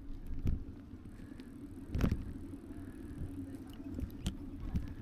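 E-bike ride heard from a bike-mounted action camera: a steady low rumble of tyres on pavement and the running bike, with the frame rattling and two louder knocks over bumps, about half a second in and about two seconds in, and a few lighter ticks near the end.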